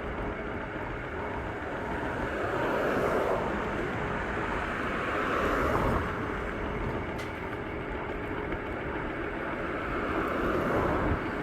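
Bird electric scooter riding along a road: a steady rumble of wheels and wind noise that swells and fades a few times.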